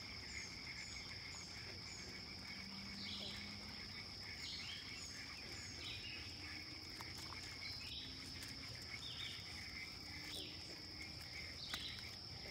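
Steady high-pitched drone of insects, with a short falling chirp repeating roughly every second and a half.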